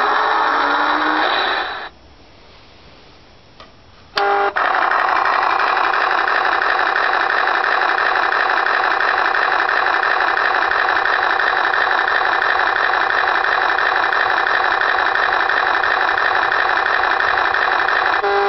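Electronic truck sound effects from a toy dump truck's built-in '4 Truck Sounds' module, played through its small speaker. A pitched engine sound with sweeping glides stops about two seconds in. After a pause and a click, a loud, steady electronic engine drone comes on about four seconds in.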